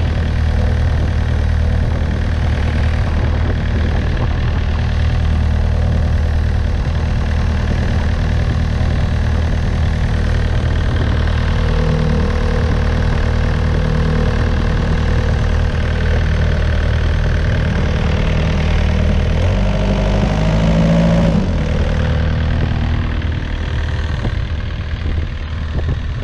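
Yanmar VIO50-U mini excavator's four-cylinder diesel engine idling steadily, heard close up in the open engine compartment. About twenty seconds in its note briefly shifts upward, and it grows a little fainter near the end.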